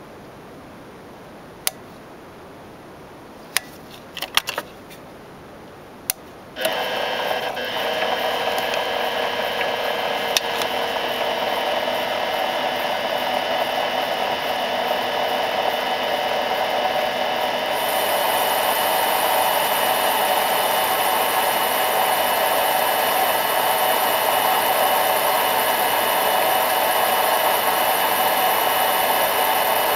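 A few light clicks, then about six and a half seconds in a micro lathe starts up and runs steadily with a multi-toned motor whine. From about eighteen seconds in, a higher hiss joins it.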